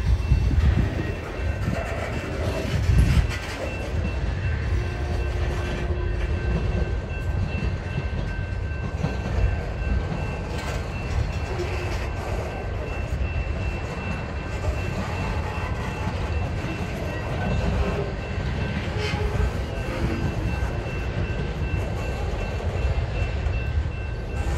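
Freight cars of a slow-moving mixed freight train rolling past: a steady low rumble of steel wheels on the rails, with occasional faint clanks.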